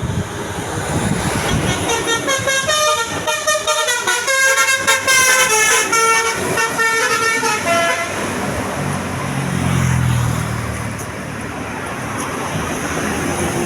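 Telolet bus horn, a multi-tone musical air horn, playing a quick tune of short stepped notes for about six seconds. A low rumble swells and fades after it.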